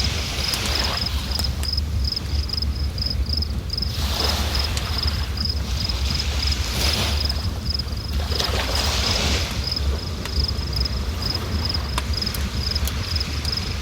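A river rushing, its noise swelling in surges every couple of seconds over a steady low rumble. A cricket chirps throughout in a quick, even pulse of several chirps a second.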